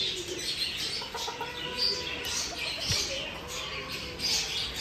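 Many caged birds chirping at once, a dense, continuous chorus of short high chirps.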